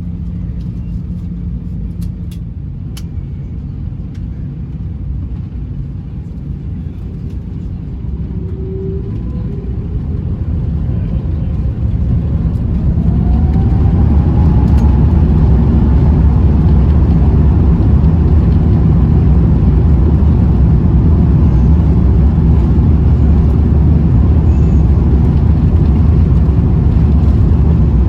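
Airbus A350-900's Rolls-Royce Trent XWB engines heard from inside the cabin. A low steady rumble builds from about a third of the way in, with a rising whine as the engines spool up to takeoff thrust. It then holds a loud, steady rumble through the takeoff roll.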